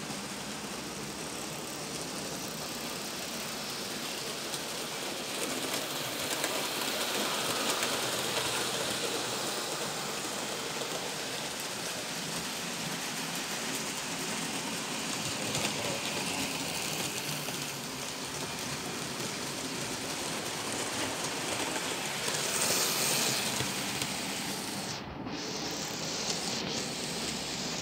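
OO scale model trains running on the layout's track: a steady rushing noise of small wheels and model motors on the rails, swelling louder twice as the trains pass close.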